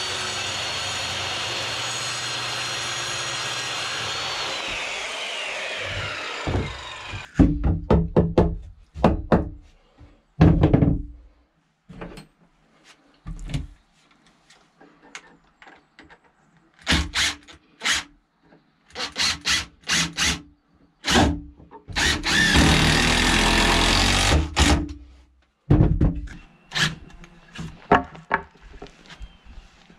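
Circular saw running with a high whine, which falls as the blade spins down about six seconds in. Then a series of knocks and short bursts of a cordless drill driving screws into wood, the longest run lasting about three seconds.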